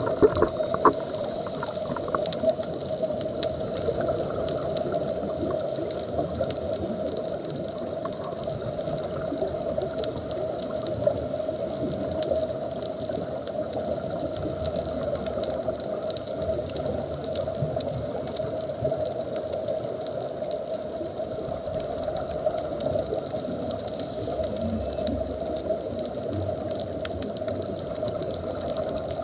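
Underwater reef ambience heard through a camera's waterproof housing: a steady muffled hiss and hum with a dense scatter of faint clicks and crackles, a few sharper clicks in the first second.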